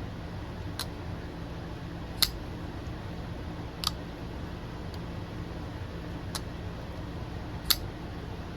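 CMB Lurker folding knife being flipped open and shut on its caged bearing pivot: five sharp, separate clicks of the blade snapping into place, with irregular gaps between them.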